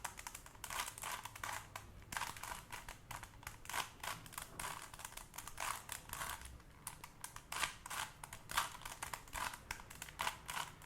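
Rubik's Cube being turned quickly by hand: a dense run of short plastic clicks and clacks as the layers are twisted during the final stage of the solve.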